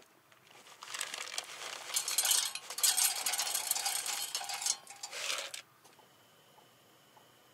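Wood pellets poured from a plastic scoop into the metal tube of a pellet stove, a dense rattling of pellets on steel for about five seconds, loudest in the middle. It stops abruptly, and the faint steady hiss of a handheld butane torch lighting the stove follows.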